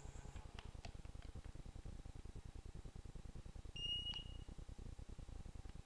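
A single short electronic beep from an electric-bike kit's LCD display as its button is pressed, over a low steady rumble, with a few faint clicks before it.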